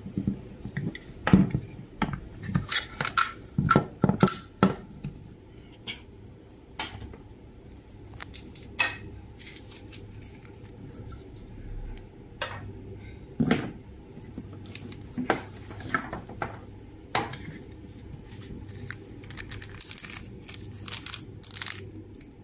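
Hard plastic knocking and clicking as a security camera and its swivel mounting bracket are handled, loudest in the first few seconds. Later a plastic zip bag crinkles and small metal screws clink and rattle together, most densely near the end.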